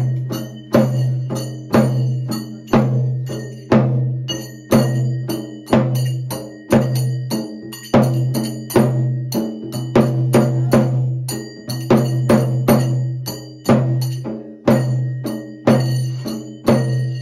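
Hand-held frame drum beaten with a stick in a steady ritual rhythm: a loud stroke about once a second with lighter strokes between, each leaving a low ringing boom, with a bright metallic ringing over the beat.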